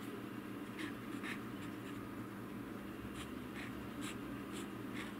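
Platinum maki-e fountain pen nib scratching across paper in a series of short strokes as a kanji character is written, over a steady low hum.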